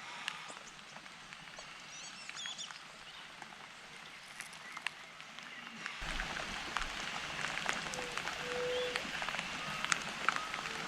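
Pantanal wetland soundscape after rain: scattered short bird chirps and calls over a steady hiss, with many small ticks and drips of water. The background grows louder about six seconds in, and a short low call sounds a little later.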